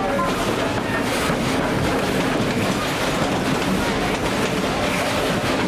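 Tweetsie Railroad's narrow-gauge passenger train rolling along the track: a steady rumble of wheels on rails with clickety-clack.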